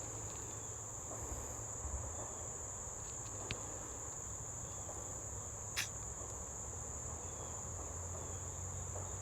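Steady high-pitched chorus of crickets, with a few faint ticks and one sharp click about six seconds in.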